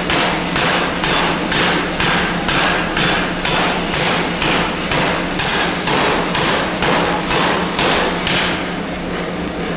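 Large power forging hammer striking a red-hot steel bar in rapid, evenly spaced blows, about two a second, over a steady machine hum. The blows stop near the end.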